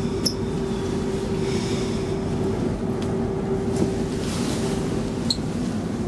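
Inside an X10 electric commuter train: a steady rumbling hum with a constant electrical whine, and two brief high squeaks, one near the start and one near the end.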